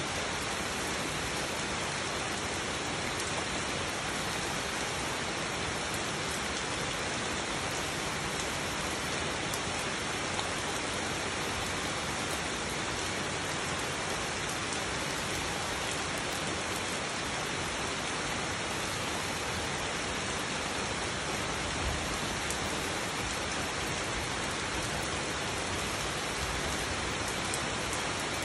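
Steady rain falling on leaves and wet ground: an even hiss with faint ticks of single drops, unchanging throughout.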